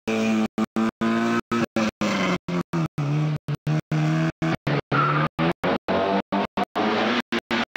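Rally car engine revving hard through tight tarmac corners, its pitch climbing and dropping with throttle and gear changes. The recording cuts out in brief silent gaps about three times a second.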